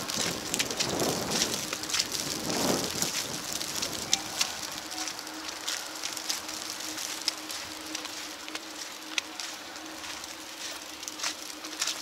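Wet snow falling on a street: a steady patter and hiss of wet flakes and drops on the pavement, with scattered sharper ticks and a faint steady hum underneath. The noise swells louder in the first few seconds.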